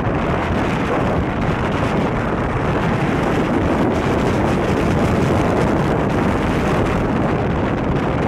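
Steady rush of wind buffeting the microphone on a moving motorcycle, mixed with the bike's running and road noise.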